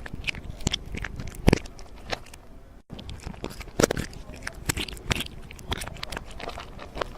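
Irregular crunching and crackling clicks, with a brief break about three seconds in.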